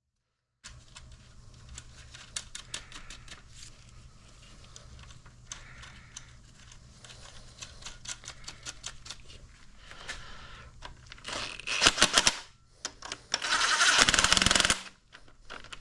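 Metal hand tools clicking and clinking on the engine's connecting-rod caps over a steady low hum, with a run of rapid ratchet clicking about twelve seconds in and a louder noisy burst lasting about a second and a half soon after.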